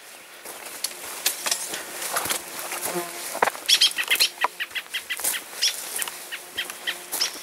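Leafy brush and branches swishing and crackling against a hiker pushing along a narrow, overgrown trail, mixed with footsteps on the dirt path: a run of quick, irregular rustles and snaps.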